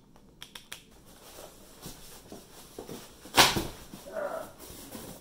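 Unboxing noise from a monitor's cardboard box and styrofoam packing: scattered rustles and small knocks, then one sharp, loud thump about three and a half seconds in, followed by a short squeak.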